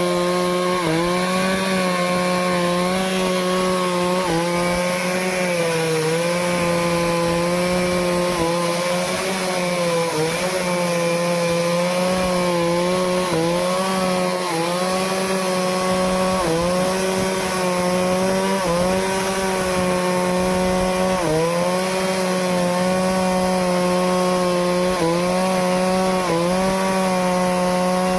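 Stihl chainsaw running at high revs while cutting through teak wood. The engine note dips briefly every second or two as the chain bogs under load, then recovers.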